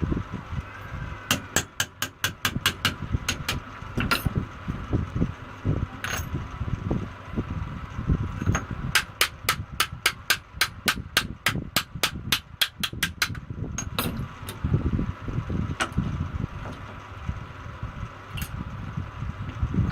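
Hands-on metal tool work on a semi-automatic box strapping machine: two runs of rapid sharp clicks, about five a second, one near the start and a longer one midway, with scattered single metallic knocks between them over a low rumble.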